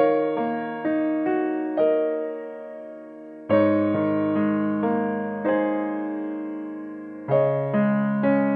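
Background music: slow solo piano, with a fuller chord struck every three to four seconds and single notes in between, each ringing and dying away.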